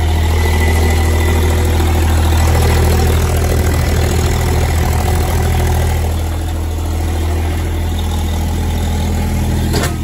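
Skid steer's diesel engine idling steadily just after a cold start in deep cold, having needed the glow plugs run twice to catch.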